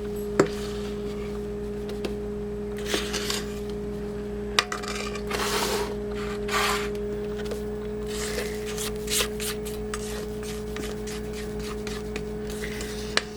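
Rubber spatula scraping and tapping against a mixing bowl and thin baking pans while angel food cake batter is spooned out. It comes as scattered clicks and short scrapes over a steady hum.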